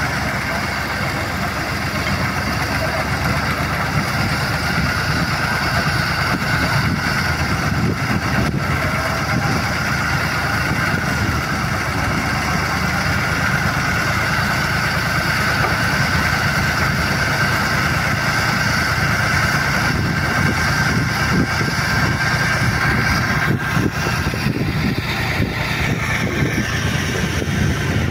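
Ford tractor engine running steadily as it drives a rear-mounted capstan winch hauling in a beach seine net's rope, with a steady high whine over the low rumble.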